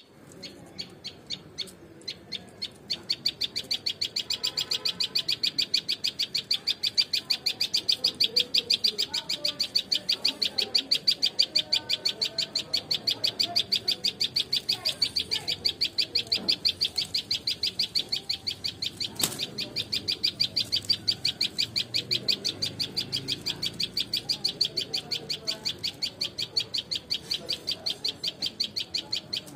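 A high-pitched chirp repeated steadily about four times a second. It is sparse at first and continuous from about three seconds in, with one sharp click a little past the middle.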